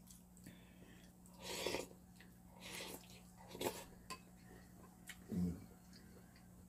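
Soft eating sounds: a few short slurps of beef seaweed soup (miyeokguk) and its seaweed from a spoon and chopsticks, with a short low murmur near the end. A faint steady hum lies underneath.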